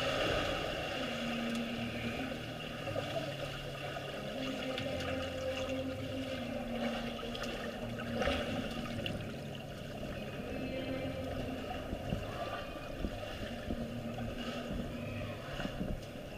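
Swimming pool heard underwater: muffled water noise from swimmers kicking nearby, with scattered small knocks and a low hum that comes and goes.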